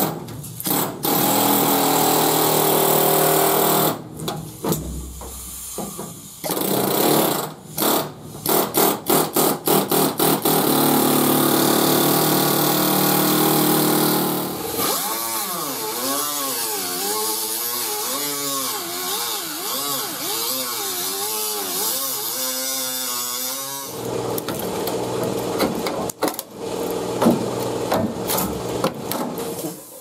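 A pneumatic air hammer with a sheet-metal cutter bit ripping through rusted quarter-panel sheet metal in bursts, with rapid short trigger pulses. About halfway through, a pneumatic die grinder with a cut-off wheel takes over, its whine rising and falling as the wheel loads in the cut. Near the end there is harsher noisy cutting again.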